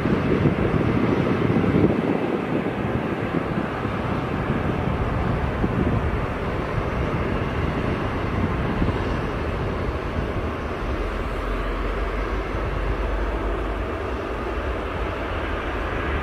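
The Antonov An-225 Mriya's six turbofan engines running at low power as the aircraft taxis and turns on the runway. The sound is a steady rumble with a hiss, a little louder in the first two seconds and then easing slightly.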